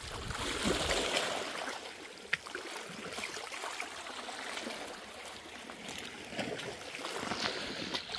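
Small seawater waves lapping and trickling against shoreline rocks, with one sharp tap a little over two seconds in.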